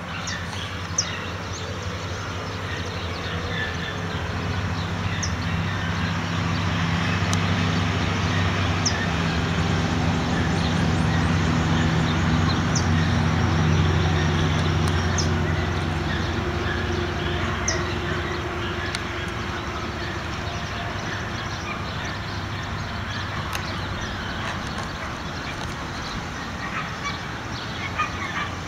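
A motor engine's low hum, swelling to its loudest about halfway through and then fading, over steady outdoor background noise with a few short high chirps.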